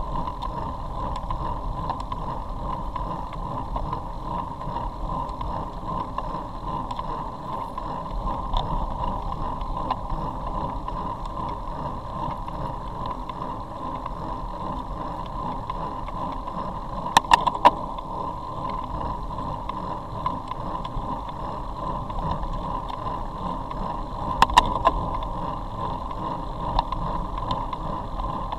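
Steady wind and road rumble on a road-bike-mounted camera while riding in a group on a wet road, with a few sharp clicks twice, about 17 and 24 seconds in.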